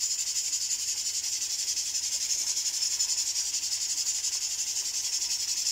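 Raw chicken pieces frying in hot oil in a wok: a steady sizzle.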